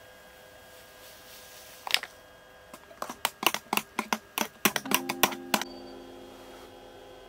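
Spoon stirring a drink in an enamel camp mug, clinking against the metal sides. A single clink comes about two seconds in, then a quick run of clinks at about four or five a second for some two and a half seconds.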